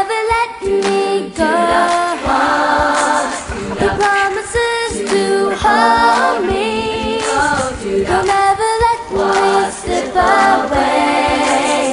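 A cappella vocal group singing a Christian song in several-part harmony, with no instruments.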